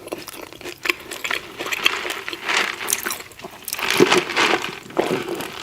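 Close-miked chewing with wet, smacking mouth sounds in irregular bursts.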